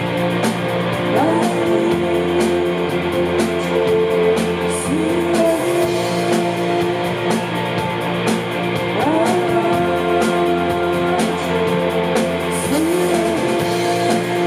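Live indie rock band playing: two electric guitars and a drum kit with steady cymbal hits, with a female singer's vocals.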